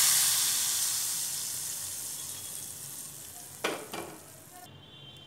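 Hot oil tempering of cumin, garlic, green chillies and asafoetida sizzling as it is poured onto boiled, blended spinach and dill greens. The sizzle is loudest at the start and fades away gradually. A short knock comes about three and a half seconds in.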